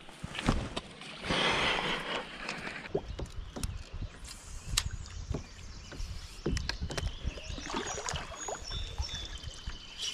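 Water splashing and sloshing against a kayak, with scattered knocks and clicks on the hull.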